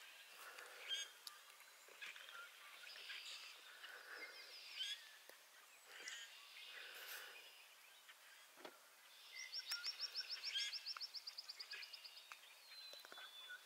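Faint chorus of small songbirds: scattered chirps and short whistled phrases, with a high, dry trill of about eight notes a second starting a little past nine seconds in and lasting about two and a half seconds.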